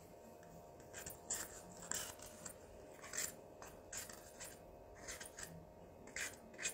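Faint, short scratchy scraping and rubbing noises, irregular, several a second or so apart, over a steady low hum.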